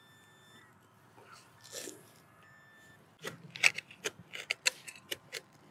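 Hand digger chopping and scraping into grassy soil to dig out a detector target. A quiet start is followed, from about three seconds in, by a quick run of sharp clicks and knocks.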